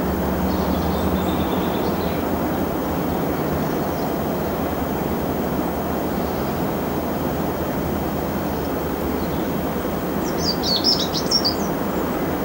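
Steady rushing noise throughout, with a brief burst of bird chirps near the end.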